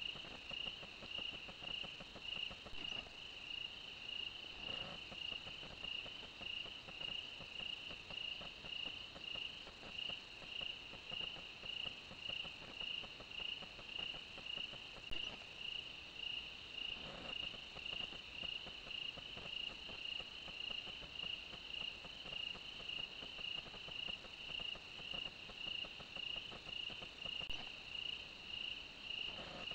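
Crickets chirping in an even, unbroken rhythm, roughly two chirps a second, over a fainter steady insect trill.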